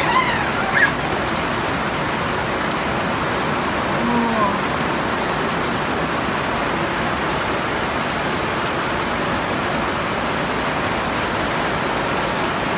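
Steady rain falling and splashing on a wet rooftop floor.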